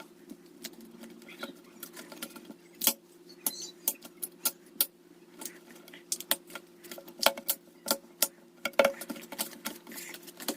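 Squeeze stickers being pressed and tapped by fingers, giving irregular sharp clicks and light taps, a few of them louder.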